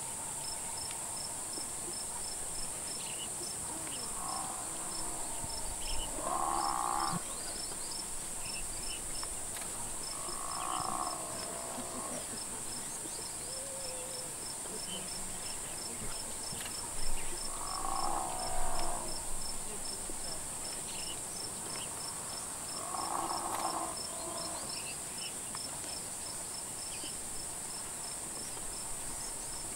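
Steady high-pitched insect buzz from crickets, with a fast, regular chirp running over it. Four separate animal calls, each about a second long, stand out above it at intervals.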